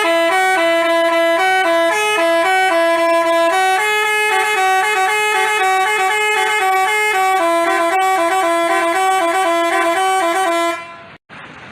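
Telolet basuri musical bus horn playing a fast melody of short, stepped horn notes. It cuts off suddenly about eleven seconds in.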